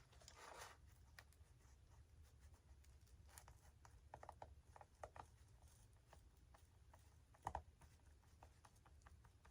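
Near silence with faint scattered clicks and rustles of small parts being handled, and one louder tap about three-quarters of the way through.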